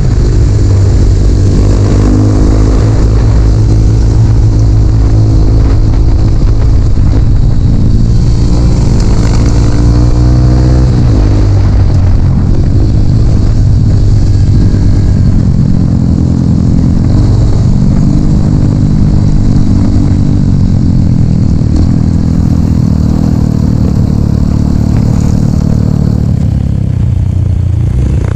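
Dirt bike engine running loud under varying throttle, its pitch rising and falling as it is revved and eased off, with a steep climb in revs about ten seconds in before dropping back.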